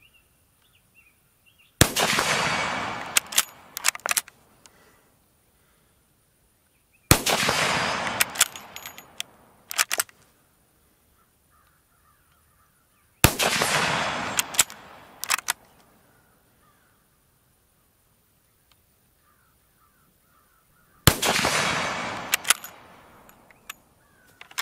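Four rifle shots from an 1886 Lebel rifle in 8mm Lebel, spaced several seconds apart. Each is a sharp crack with about two seconds of rolling echo, followed by a few short metallic clacks as the bolt is worked.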